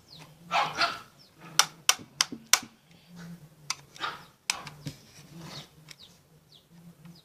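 A short yelp-like burst about half a second in, then a quick run of sharp plastic clicks and taps, four in about a second, and one more a couple of seconds later, as a toy bubble pistol is worked on with a screwdriver.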